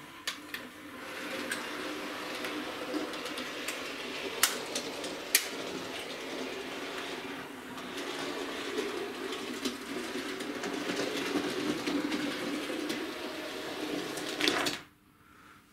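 Hornby OO-gauge Battle of Britain class model steam locomotive running on its track: a steady electric motor whirr and wheel rumble with a few sharp clicks. It cuts off abruptly near the end. This is the model whose front pony truck keeps coming off the track.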